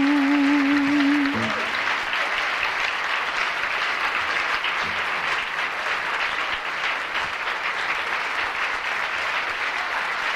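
Audience applause for a live solo performance: the song's last held note, slightly wavering, breaks off about a second and a half in, and steady clapping fills the rest.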